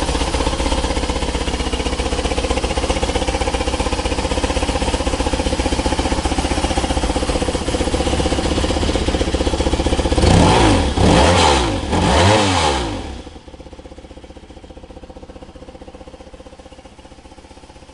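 1995 BMW R1100RS's boxer twin idling steadily, then revved three times in quick succession about ten seconds in. After the revs the sound drops much quieter, though the engine keeps running evenly.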